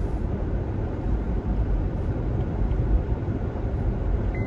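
Steady low rumble of a car being driven, heard from inside the cabin. A short high beep starts near the end.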